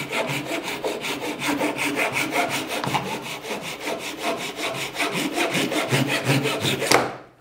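Gyokucho kataba Japanese pull saw crosscutting a board with quick, even strokes, about five a second. The sawing stops abruptly about seven seconds in.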